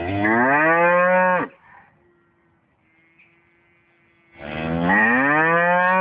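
A cow mooing: a long moo that rises in pitch and ends about a second and a half in, then a second long, rising moo starting near the end.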